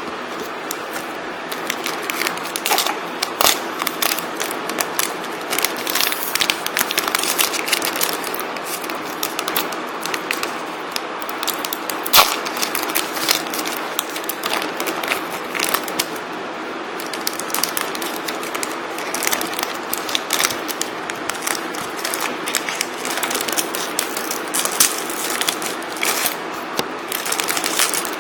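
Foil trading-card packet crinkling and tearing open, with cards being handled, a long run of irregular crackles and clicks.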